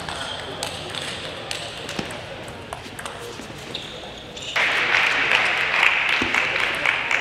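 Table tennis ball clicking off the bats and table during a rally, sharp separate ticks. About four and a half seconds in, a much louder steady wash of noise sets in and holds, with a few more clicks inside it.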